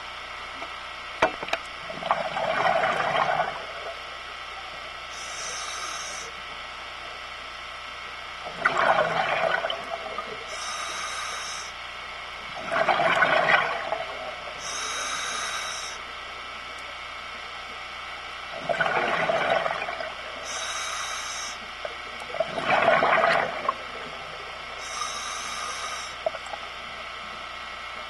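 Scuba regulator breathing, heard close by: a loud gush of exhaled bubbles about every five seconds, each followed a few seconds later by a shorter, thinner hiss of air drawn through the regulator on the inhale.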